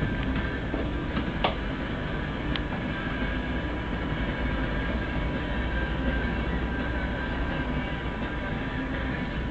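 Steady low rumble and hum of a motor vessel underway, heard on its bridge, with a faint steady whine above it. A couple of light clicks come about one and a half and two and a half seconds in.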